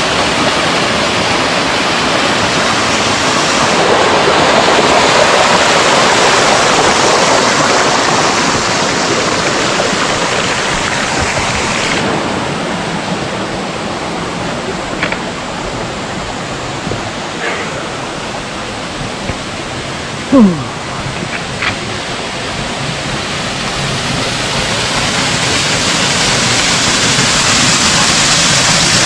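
Mountain stream rushing over rocks, a steady loud water noise whose level shifts abruptly about twelve seconds in. A short, loud falling sound comes about two-thirds of the way through.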